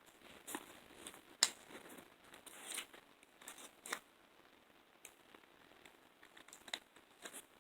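Plastic toy packaging being crinkled and torn open by hand, in irregular faint crackles with a few sharper snaps, the loudest about a second and a half in and again about four seconds in.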